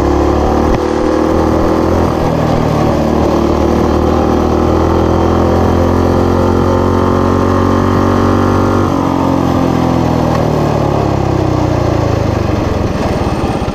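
Coleman BT200X mini bike's single-cylinder four-stroke engine running loud under throttle, its pitch climbing slowly as the bike picks up speed, then dropping suddenly about nine seconds in as the throttle is eased off, and running on at lower revs.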